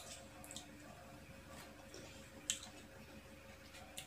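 Close-up mouth sounds of chewing crisp unripe green mango: a few sharp wet clicks and crunches, the strongest about two and a half seconds in, over a faint steady hum.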